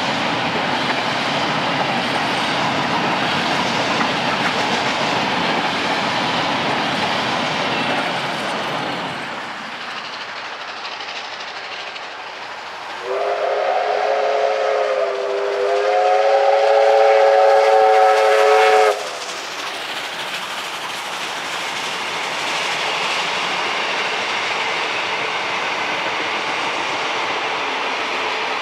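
Steam-hauled passenger carriages rolling past with wheels clicking over rail joints. About thirteen seconds in, an R class Hudson steam locomotive's whistle blows a long blast of several notes at once for about six seconds, its pitch stepping up partway through before it cuts off sharply, and the train runs on past.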